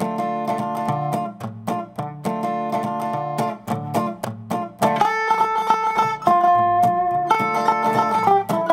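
Background music on plucked acoustic guitar, with chords at a steady beat. About five seconds in, a louder held melody line comes in.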